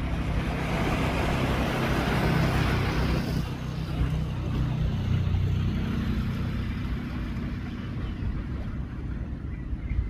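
Strong waves breaking and washing up the shore, loudest in the first three seconds or so, with a strong wind rumbling on the microphone.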